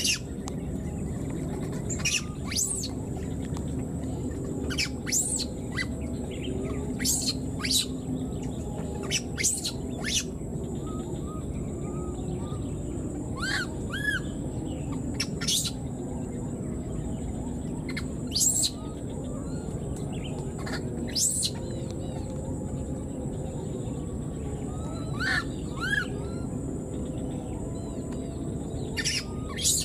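Short, sharp, high-pitched animal chirps repeated every second or two, a few of them short arched squeaks with overtones, over a steady faint high whine and a low rumbling background.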